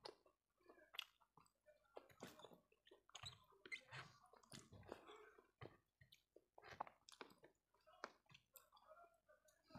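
Faint chewing and wet mouth smacks of eating rice and fish curry by hand, with irregular soft clicks.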